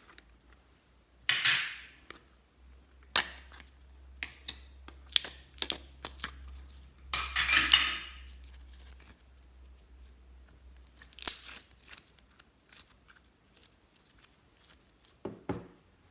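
Hands working slime and the things being mixed into it: scattered clicks, taps and crackles, with a few short rustling bursts and a low thud near the end.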